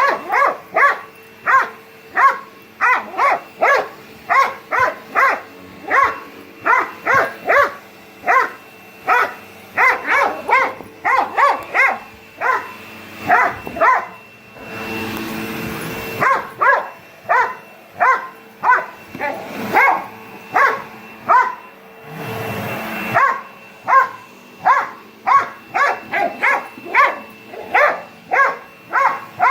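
A dog barking over and over, about two barks a second, at a running vacuum cleaner whose steady hum lies underneath. The barking breaks off twice for a second or two while a louder rushing noise of the vacuum comes through.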